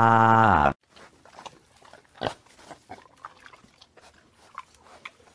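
A synthesized cartoon child's voice holds a long crying "wah" that dips in pitch and cuts off under a second in. After it come only faint, scattered clicks and smacks.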